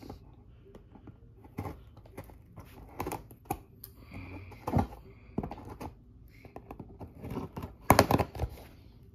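Cardboard air-rifle box being handled and its packing tape cut open with a box cutter: scattered clicks, taps and crackling scrapes, loudest in a cluster near the end.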